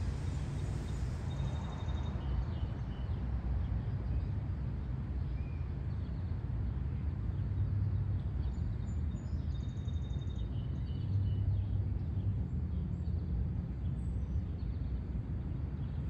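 Outdoor ambience: a steady low rumble with faint, short bird chirps scattered through it.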